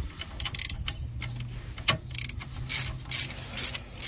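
Hand ratchet with a swivel tightening wheel-bearing hub bolts, clicking in short bursts of strokes that come about every half second in the second half, over a steady low hum.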